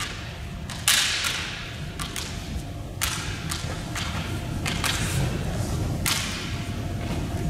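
Bamboo kendo shinai clacking and striking, sharp cracks echoing in a large hall: the loudest about a second in, two more near three and six seconds in, with lighter taps between.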